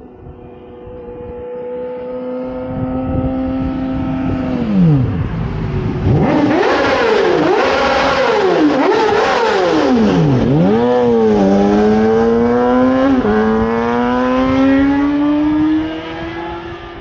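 2009 Yamaha R6 inline-four sportbike with a full Yoshimura exhaust passing at speed in a tunnel: it grows louder at a steady pitch, its pitch swoops down and up several times as it goes by, then it accelerates with a rising note, a gear change about 13 seconds in, and drops away near the end.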